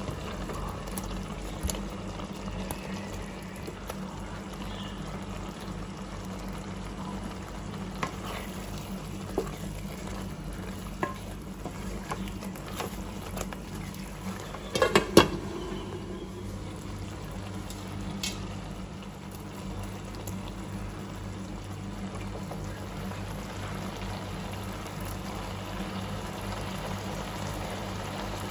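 Thick tomato-onion paneer gravy simmering and bubbling in a pan, over a steady low hum. Scattered sharp clicks come from a spoon against the pan, and about halfway through there is a short louder clatter as the curry is stirred.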